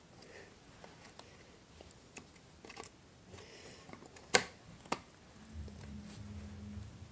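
Small clicks and taps of Mac Pro memory modules being handled and pushed into their slots, with a sharp click about four seconds in and another half a second later. A low steady hum comes in near the end.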